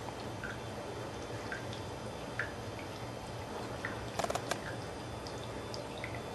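Steady low room hiss with a few scattered faint clicks, and a quick cluster of three or four clicks about four seconds in.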